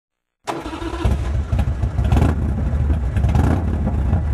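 A motorcycle engine running with a deep, uneven throb, starting suddenly about half a second in.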